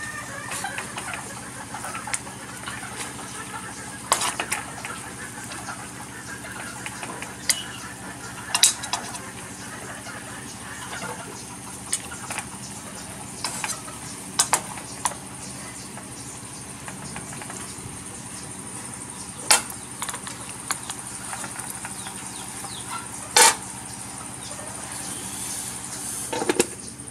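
Braising liquid bubbling in an aluminium stockpot over a steady background hum, with a metal spoon clinking against the pot now and then while the pig head is basted; the aluminium lid clanks onto the pot near the end.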